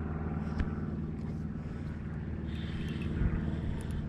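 Boat motor running steadily at low speed, an even low hum.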